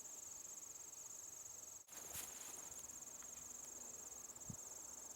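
Crickets chirping in a faint, steady high trill, with a brief dropout about two seconds in.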